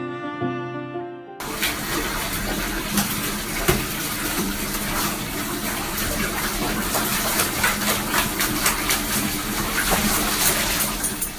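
Background music, then about a second and a half in a bathtub faucet running full into the tub starts suddenly, the water splashing as a dog paws and bites at the stream.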